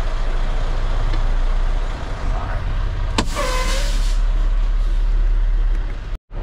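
Semi truck's diesel engine idling steadily, heard from inside the cab. About three seconds in there is a sharp pop and a short hiss of air as the air parking brakes are set.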